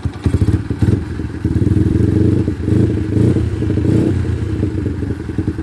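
Yamaha Jupiter MX New's single-cylinder four-stroke engine, with a PE28 carburettor breathing through the stock airbox and a racing exhaust, revved from idle: a few short throttle blips, then the throttle held open for about two and a half seconds before it drops back to idle.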